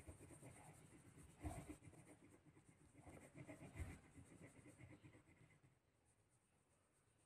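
Faint pencil scratching on paper in quick, rapid strokes, stopping about five and a half seconds in.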